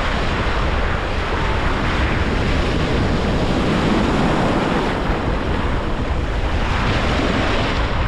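Atlantic Ocean surf breaking and washing up the beach, the rush swelling about halfway through and again near the end, with wind buffeting the microphone as a low rumble.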